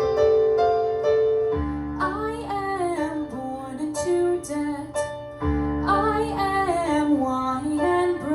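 Live piano chords accompanying a solo singer performing an original song. A held chord changes about a second and a half in, the voice comes in shortly after with a sung line, and a new chord comes in about halfway through under a second line.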